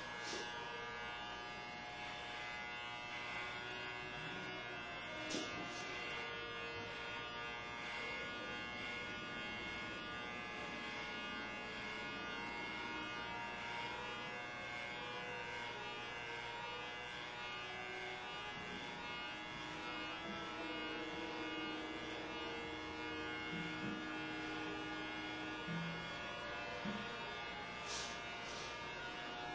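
Electric hair clippers buzzing steadily while cutting hair, with a few faint clicks.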